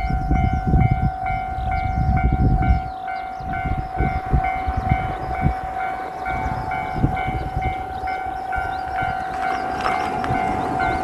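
Japanese railway level crossing warning bell ringing its steady, repeating 'kan-kan' chime, about two strikes a second, over an uneven low rumble.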